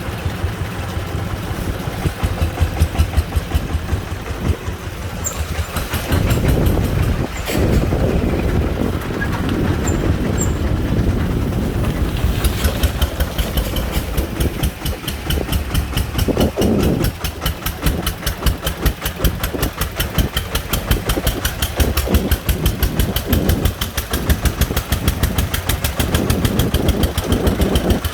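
Công nông three-wheeler's single-cylinder diesel engine running under a load of sand, with a rapid, even chugging beat that turns sharper and more clipped about halfway through.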